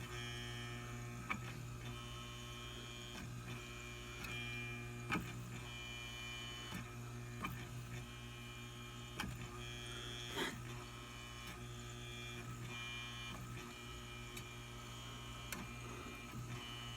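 Refrigerator evaporator fan motor humming steadily, with a higher whine that comes and goes every second or two and scattered light clicks and knocks. The motor is failing and struggles to spin.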